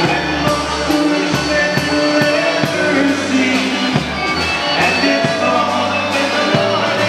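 Live polka band playing, a drum kit striking a steady beat about twice a second under bass notes and a melody, with the reverberation of a large hall.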